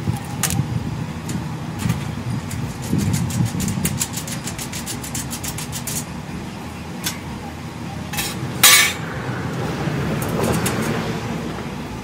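Metal clicks and clinks of hand work on the motorcycle's parts, including a quick run of clicks a few seconds in and one louder clack near the end, over a steady low background rumble.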